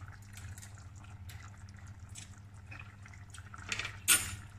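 Rice and broth simmering in an open pot, small bubbles popping with faint scattered ticks over a steady low hum. A sharp clack of kitchenware sounds about four seconds in.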